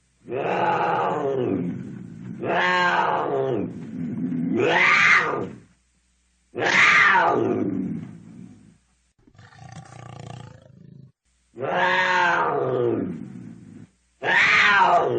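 Cougar calling: a series of about six loud, drawn-out yowls, each a second or two long and sliding in pitch, separated by short pauses, with a quieter, rasping call near the middle.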